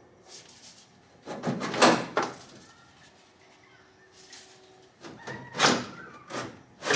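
The old radiator of a 1957 Chevrolet scraping and rattling against its mounts in three short bursts as it is worked loose by hand for removal.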